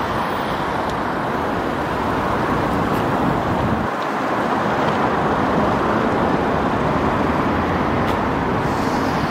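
Busy road traffic: a steady rush of passing cars.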